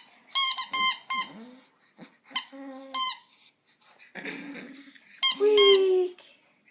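Rubber squeaky toy squeezed again and again, a quick run of sharp squeaks in the first second and more later, with a chihuahua howling along to it; one longer, lower howl comes a little over five seconds in.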